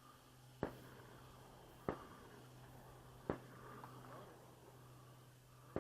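Four gunshots fired at a drone, about one to two seconds apart, each a sharp crack over a steady low hum.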